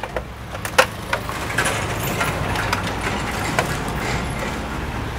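Motor vehicle engine running close by, a steady rumble with a noisy hiss, after a few sharp clicks and knocks in the first second.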